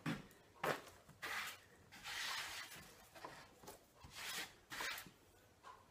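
Rustling and scraping as the old padding and fabric are pulled away from a wooden chair seat board: a string of short bursts, with a longer one about two seconds in.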